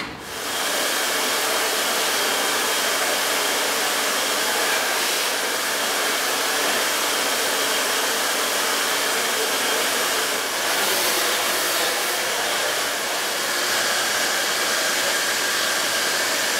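Handheld hair dryer switching on about half a second in and running steadily, blowing air through hair during a round-brush blow-dry, with a faint motor whine under the rush of air.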